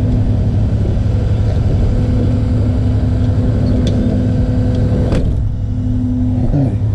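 Tow truck engine running steadily with a droning hum while the no-start van is winched up onto the bed, with a single sharp knock about five seconds in.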